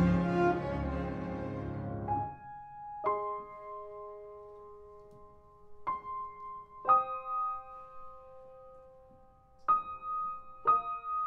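Background music: a fuller passage fades out over the first two seconds, giving way to slow, sparse piano notes and chords struck every one to three seconds, each left to ring out.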